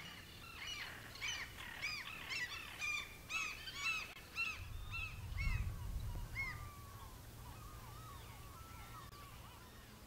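A flock of birds calling, many short rising-and-falling cries overlapping, thinning out to a few fainter calls after about six seconds. A brief low rumble comes about five seconds in.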